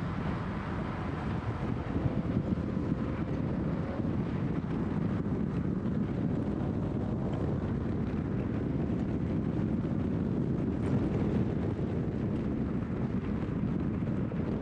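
Steady in-cabin noise of a 2013 Scion FR-S on the move: its flat-four engine running, mixed with tyre, road and wind noise.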